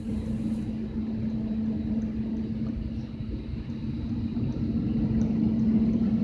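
Airplane engine noise: a steady low rumble with a droning hum that grows slightly louder.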